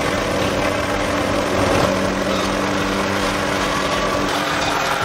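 An engine running steadily with a continuous hum of held tones, some of which drop out about four seconds in.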